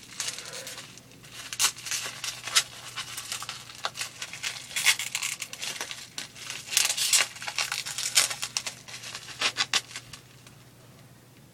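Packaging crinkling and tearing in irregular bursts as a fingerboard deck is unwrapped by hand, stopping about ten seconds in.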